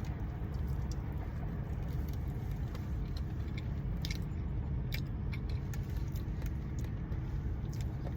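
Quiet chewing and small clicks from handling food, over a steady low rumble.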